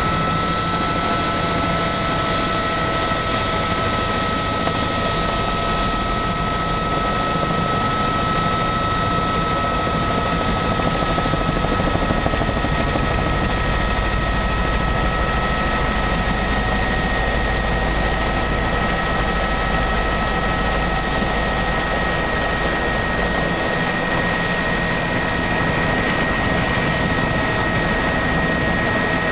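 Steady, loud cabin drone of a small sightseeing aircraft in flight, engine and rotor noise heard from inside, with a constant high whine over it.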